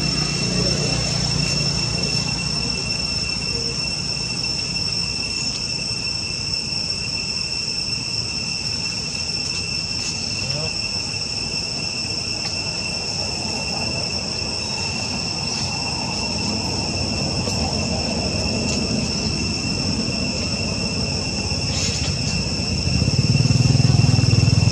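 Insects droning steadily outdoors: a continuous high-pitched whine with a second, higher tone above it. A low rumble underneath grows louder near the end.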